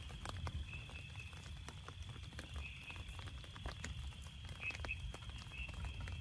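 Night ambience: a steady high-pitched insect drone, with short chirping calls from frogs or insects several times, over a low rumble. Scattered light taps, like drips on the tent fabric, run through it.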